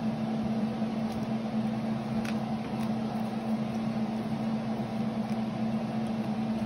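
Steady mechanical hum with one fixed low tone, with a few faint clicks and scrapes of a slotted spoon stirring vegetables on a metal sheet pan.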